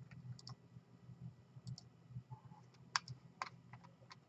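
Faint, scattered clicks of a computer mouse, some in quick pairs, the sharpest about three seconds in, over a low steady hum.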